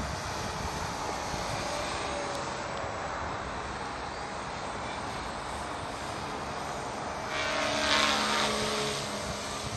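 Radio-controlled model helicopter flying, a steady drone of its motor and rotor that grows louder for a couple of seconds about seven seconds in as it passes closest.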